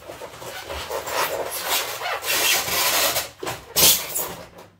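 Cyma CM366 polymer airsoft shotgun being pulled out of its styrofoam packaging: uneven scraping and rustling of plastic against foam, loudest a little before the end.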